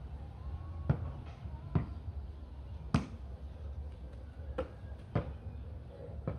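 Sharp thuds of a volleyball being hit and knocked about: six impacts at uneven spacing, the loudest about three seconds in.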